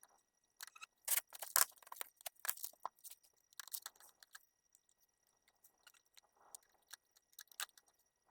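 Small clicks, taps and scrapes of tools and parts being handled while components are soldered onto a circuit board. A dense run of clicks fills the first half and thins out to scattered ticks later.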